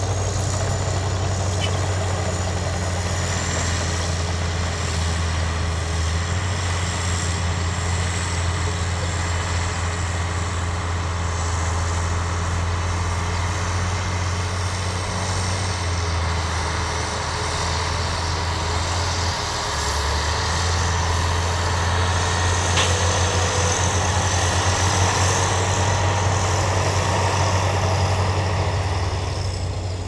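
Heavy dump truck's diesel engine running with a steady low drone as the loaded truck moves slowly across the dirt, growing a little louder about two-thirds of the way through.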